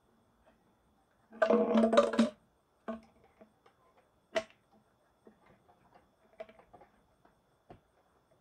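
Empty plastic drink bottle crackling and clunking as it is handled and its cap comes off, loudest for about a second near the start. Then scattered light clicks and taps as the bottle is held to the engine's fuel line.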